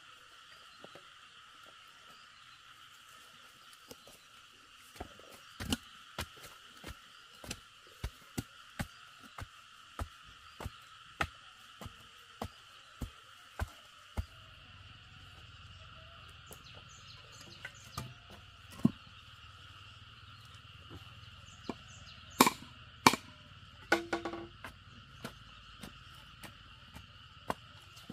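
A steady chorus of frogs and insects, with a run of evenly spaced knocks, about two a second, from a hand tool striking wood. A low rumble comes in about halfway, and a few louder knocks follow near the end.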